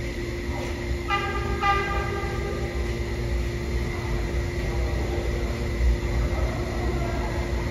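New York City subway train sounding its horn: two short toots about half a second apart, over the low rumble of the train.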